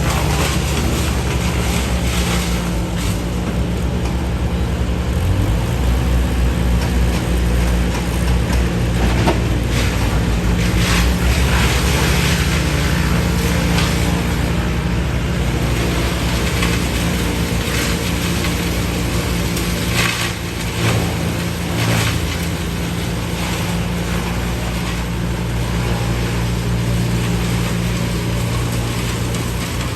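A large engine of heavy equipment running steadily, with a few scattered knocks and rattles.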